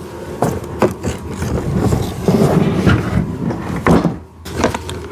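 Hard plastic parts of a kids' ride-on car being handled: scraping and rubbing with a few sharp clicks and knocks, about half a second in, near one second, and near four seconds.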